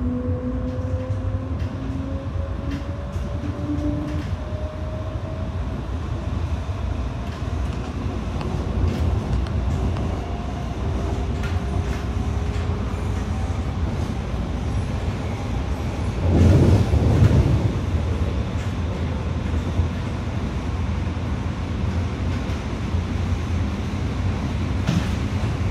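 MTR Tung Chung Line CAF-built metro train running, heard inside the carriage: a steady rumble of wheels on track with scattered clicks, and a motor whine that rises slowly in pitch over the first half. A louder burst of rumbling comes about sixteen seconds in.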